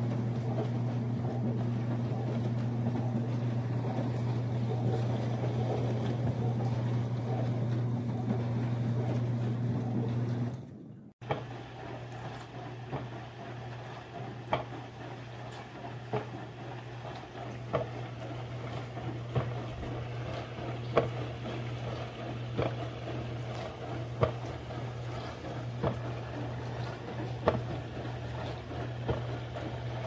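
ecozy countertop mini dishwasher running a wash cycle: its pump motor hums steadily while water sprays inside. About a third of the way in, the hum becomes quieter and sharp ticks repeat about every second and a half over the spraying.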